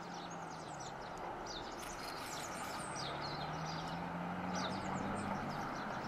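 Outdoor ambience: small birds chirping faintly and repeatedly, with short high chirps scattered throughout, over a steady background hiss. A faint low hum grows a little stronger about halfway through.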